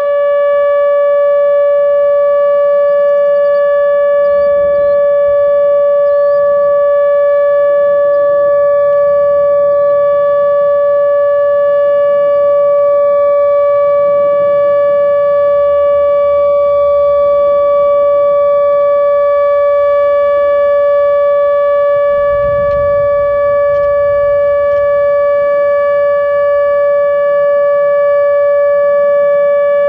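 ATI HPSS-32 electronic outdoor warning siren sounding the steady alert signal of a nuclear-plant siren test: one unwavering loud tone with strong overtones, switching on abruptly at the start.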